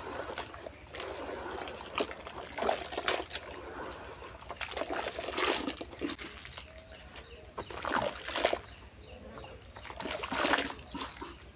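Clumps of cement and dirt crumbling between fingers: irregular crackling, crumbly bursts, about six of them, the loudest near the end.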